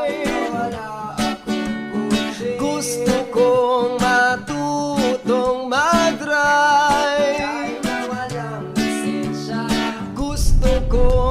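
Outro music led by a strummed acoustic guitar with a voice singing; a heavy low bass comes in about ten seconds in.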